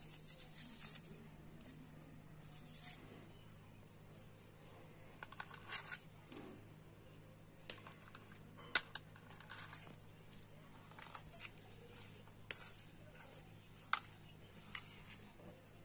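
Onion being cut with a knife, then hands squashing and mixing boiled potatoes with chopped onion in a steel pot: scattered small clicks, crackles and scrapes, with two sharper clicks near the end.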